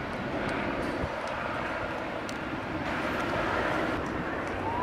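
Helicopter flying over, a steady engine and rotor drone. Near the end a police car siren starts up, rising in pitch.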